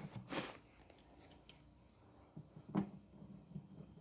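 Faint handling and tool noises while a washing machine is put back together: a short scrape about half a second in, then a few light clicks and taps, the clearest about three seconds in.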